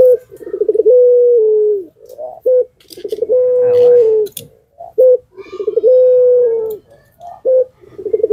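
Barbary dove (puter pelung) cooing over and over, about four times. Each coo opens with a short note and a quick stutter of pulses, then a long held tone that dips slightly at the end.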